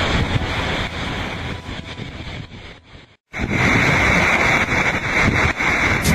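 Wind buffeting the microphone and rushing, breaking water from a 100-foot racing trimaran tearing through rough seas. The noise fades and cuts out briefly about three seconds in, then comes back louder with a hard steady hiss.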